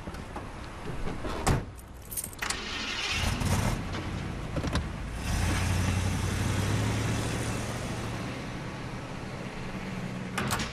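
An old minivan's door shuts with a thump, then its engine starts and the van pulls away, the engine running steadily and louder for a few seconds before easing off.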